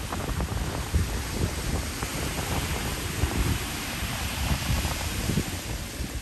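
Wind buffeting the microphone in irregular low gusts, over the steady hiss and wash of small waves breaking along the shore.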